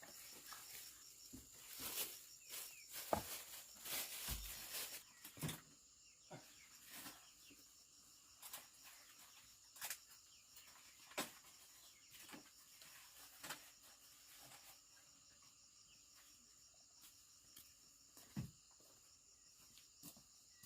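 Faint, steady, high-pitched insect drone, with scattered sharp knocks and clicks, more of them in the first half.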